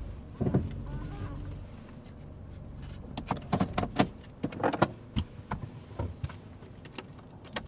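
Sedan's engine running low and steady, then cutting out about two seconds in as the car is parked. A run of sharp clicks and knocks follows from inside the car, with one more near the end.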